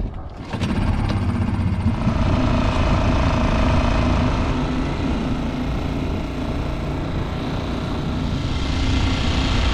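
Small outboard motor on an inflatable dinghy running at a steady pace under way, a continuous drone mixed with rushing wind and water.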